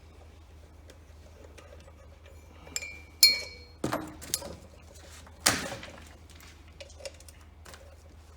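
Metal parts and tools clinking and knocking as a tractor water pump is unbolted and split apart: a ringing metal clink about three seconds in, then several sharp knocks, the loudest about five and a half seconds in, and a few small ticks after.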